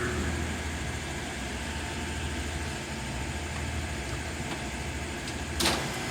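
LeBlond 4025 NK heavy-duty gap lathe running under power with a steady low hum, having just spun up. There is a single sharp clank about five and a half seconds in.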